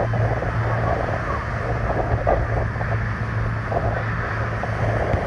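Steady low drone of the diesel engines of the lifeboat and its launch tractor, working in the surf, over the rush of breaking waves and wind buffeting the microphone.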